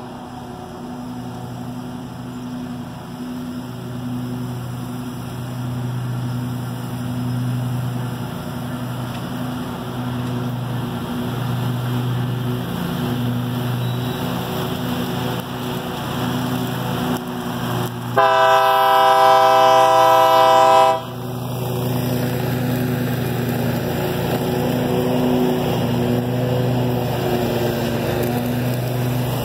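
Diesel freight locomotive's multi-tone air horn blows once for about three seconds, around eighteen seconds in, over a steady engine drone as the train approaches.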